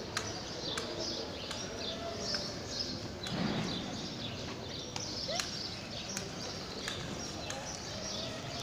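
Small birds chirping over and over, over a low murmur of distant voices, with a few sharp clicks.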